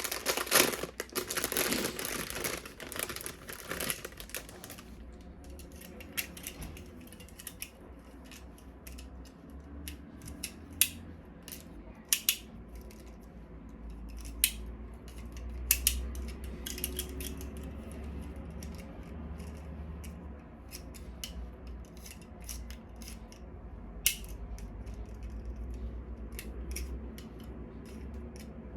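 Plastic packaging crinkling for the first few seconds, then scattered sharp clicks and taps as plastic toy parts are handled.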